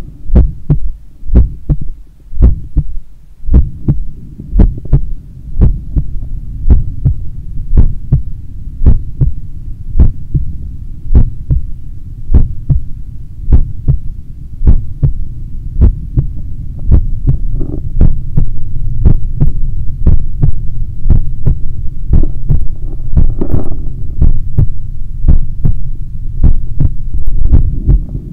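Human heartbeat picked up through a device pressed against the chest: regular resting beats about once a second on waking, over a steady low rumble that grows louder in the second half.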